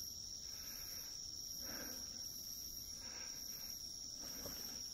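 Crickets and other night insects trilling in a steady, high, continuous tone, faint beneath the quiet of a forest at night.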